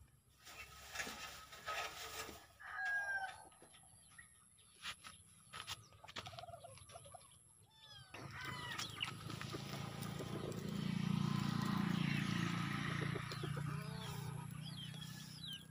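Chickens clucking and calling, with a rooster crowing, in short separate calls. From about eight seconds in, a steady rushing noise runs underneath them.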